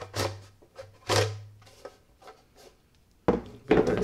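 Hard plastic blade sheath sliding off a hedge trimmer's metal cutter blades, two short scraping rasps, then sharper knocks near the end as the sheath is set down on a wooden bench.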